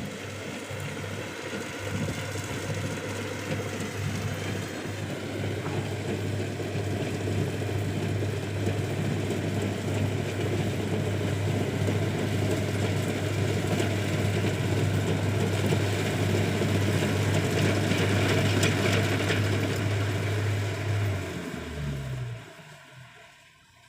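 Rice combine harvester's diesel engine running steadily with its threshing machinery clattering, then winding down and stopping about two seconds before the end.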